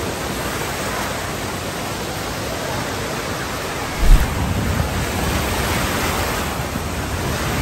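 Steady rush of water in a shallow wave pool, washing and splashing around waders. About four seconds in comes a sudden low thump, followed by low rumbling under the water sound.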